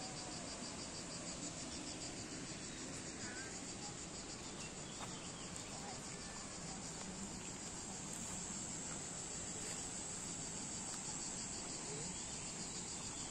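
A steady, high-pitched chorus of insects, a continuous shrill buzz with a fast, even pulse.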